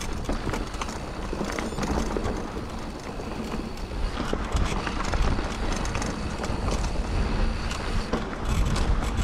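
Scott Genius full-suspension mountain bike being ridden along a trail: tyres rolling over the ground with a steady low rumble, and frequent clicks and rattles from the bike.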